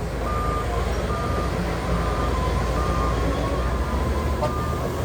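A heavy machine's reversing alarm beeping evenly, a little more than once a second, over a diesel engine's steady low rumble.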